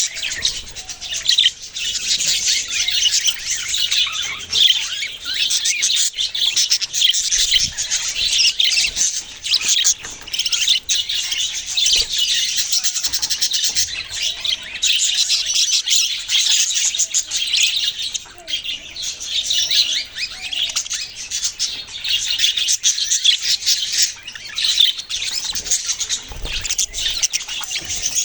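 Many small parrots chirping at once: a dense, continuous high-pitched chatter of overlapping chirps and squawks.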